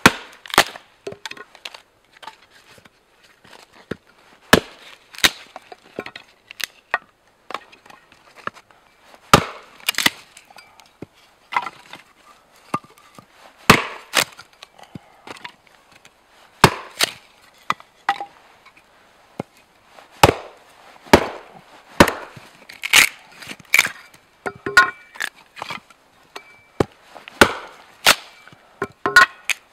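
A homemade Russian-pattern axe splitting kindling on a chopping log: sharp wooden knocks and cracks at uneven intervals, about one every second or two, sometimes two in quick succession, as the sticks split off.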